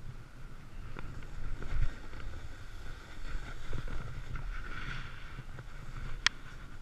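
Snowboard sliding through snow, a steady rushing with a low rumble and wind buffeting the camera's microphone, with a sharp click about six seconds in.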